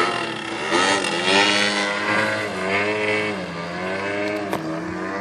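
Radio-controlled 50cc gas-engined Edge aerobatic plane flying, its engine note rising and falling in pitch as the throttle changes and the plane moves through the sky.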